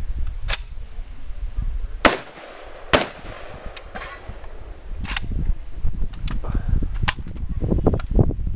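Saiga 12 semi-automatic 12-gauge shotgun firing a string of single shots about a second apart, the two loudest about two and three seconds in, over a steady low rumble.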